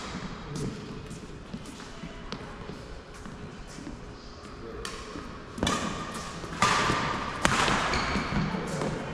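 Badminton rally: rackets smack the shuttlecock in a string of sharp hits a second or so apart, the loudest in the last few seconds, with short squeaks that fit court shoes on the floor.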